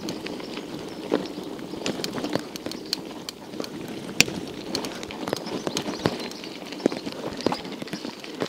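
1991 Scott Montana mountain bike rolling over a rough road surface, with rolling noise and its frame and parts rattling in irregular clicks and knocks.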